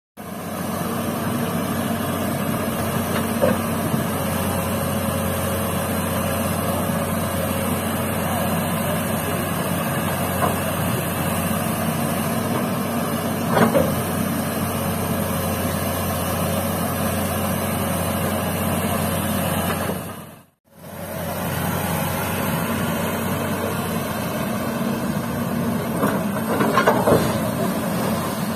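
Komatsu PC200 hydraulic excavator's diesel engine running steadily under load as it digs, with a few short knocks. The sound cuts out for a moment about two-thirds of the way through.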